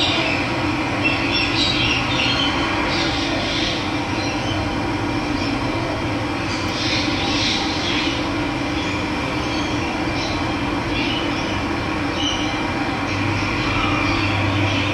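Steady rush of running water with birds chirping now and then over it.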